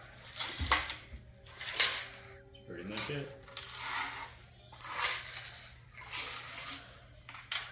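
A chain and a washer rattle inside a steel motorcycle fuel tank, with cleaning solution sloshing, as the tank is rocked back and forth. The swells of rattle and slosh come about once a second. The metal pieces are being used to scour rust loose from the inside of the tank.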